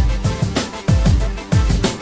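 Electronic background music with a steady beat of deep kick drums that drop in pitch on each hit, over sustained synth notes.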